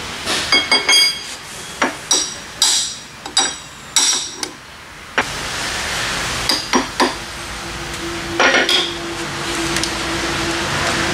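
Hammer blows on a steel suspension control arm, a run of sharp metallic clanks that ring after each strike, working on its bushings. The blows thin out after about five seconds, and a steady low hum sets in a couple of seconds later.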